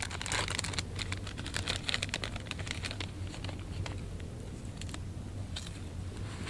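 Wood campfire crackling with quick, irregular pops, busiest in the first few seconds and thinning out after.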